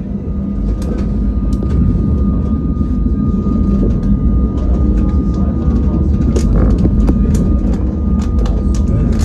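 Tram running along street track, heard from inside the cab: a steady low rumble of wheels on rail with a faint steady whine and scattered sharp clicks. It grows louder over the first couple of seconds.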